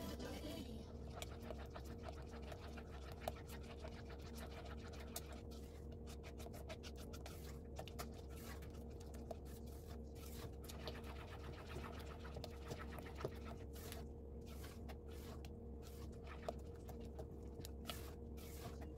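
Silicone spatula stirring and scraping a thick liquid mixture in a stainless steel saucepan: soft irregular scrapes with light clicks against the pan. A steady low hum runs underneath.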